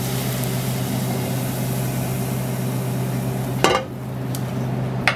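Water drops hissing in a hot, empty frying pan that is not yet hot enough for searing, over a steady low hum. A sharp clink about three and a half seconds in ends the hiss, and another click comes near the end.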